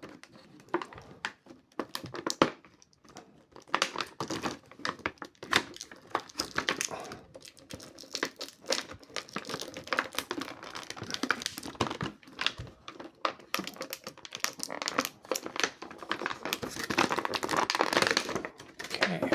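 Plastic packaging crinkling and crackling in irregular bursts, with scattered clicks of handling, as an action figure is worked out of its box; busiest near the end.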